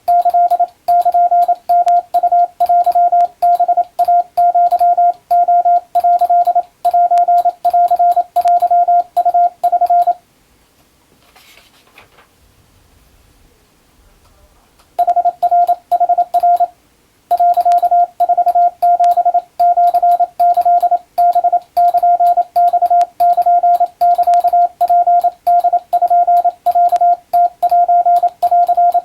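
Morse code (CW) sent as a single steady beep, keyed on and off in dots and dashes at a brisk, even pace. It stops for about five seconds a third of the way in, leaving only faint noise, then resumes.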